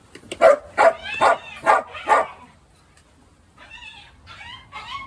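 Dog barking at a rat caught in a wire cage trap: five sharp barks in quick succession, about two a second, then fainter, softer calls near the end.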